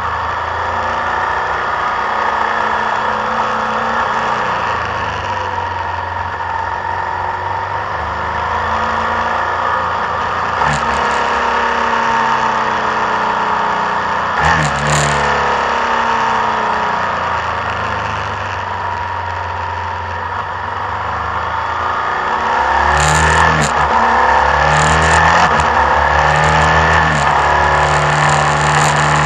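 Motorcycle engine running under way, with wind noise over the camera; the engine note rises and falls several times as the rider changes gear and revs, and gets louder near the end.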